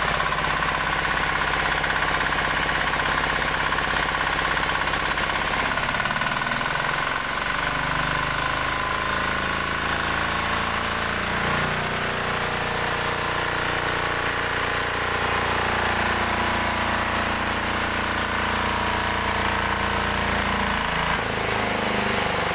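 18 hp diesel engine driving a new sawmill, running steadily, its pitch shifting a few times.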